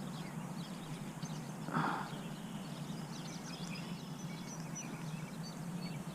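Small birds chirping repeatedly over a steady low hum, with one short rush of noise about two seconds in.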